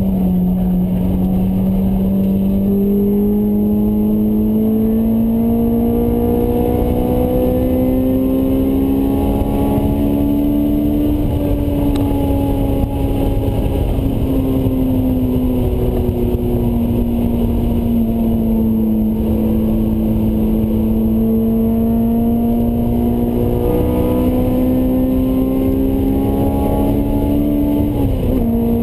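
Honda S2000's inline-four engine with a Mugen exhaust, heard inside the cabin while driven hard. The engine note climbs slowly, eases off and holds, then climbs again. Near the end an upshift drops the pitch suddenly.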